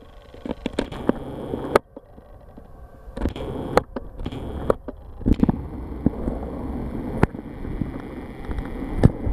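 Road traffic passing on the street, with low wind rumble on the microphone and frequent knocks and scrapes from a handheld camera being moved about.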